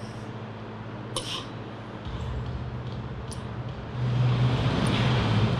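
Steady low hum of a gym's background noise that gets louder about two seconds in and again near four seconds, with two short light clicks about one and three seconds in.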